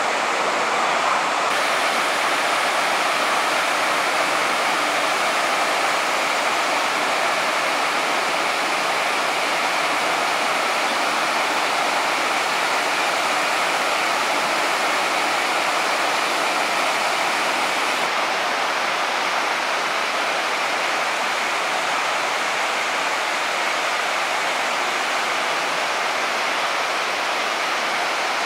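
Artificial waterfalls spilling over stepped rock ledges into a lagoon: a steady, even rush of falling water.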